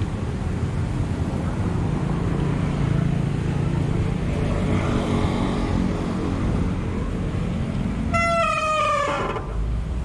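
Steady wind and road noise from riding a bicycle, with a vehicle horn sounding once about eight seconds in. The horn lasts about a second, its pitch sliding slightly down.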